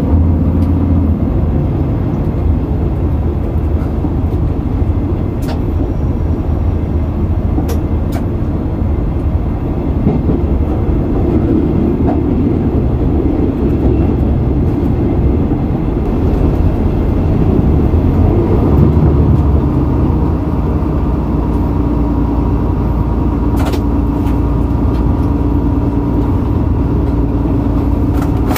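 SNCF X72500 diesel railcar heard from the driver's cab while running along the line: a steady low rumble of its diesel engines and wheels on the track, with a few faint clicks.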